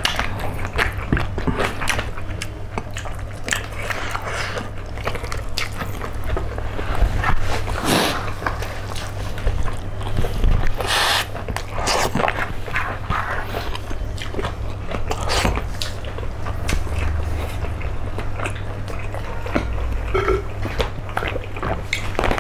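Close-up mouth sounds of eating chicken feet by hand: irregular chewing, biting and smacking, with a steady low hum underneath.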